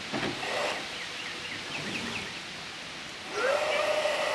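Toy bubble blaster's fan motor switching on about three quarters of the way in, spinning up briefly and then holding a steady whine as it blows bubbles. There are a couple of light clicks near the start.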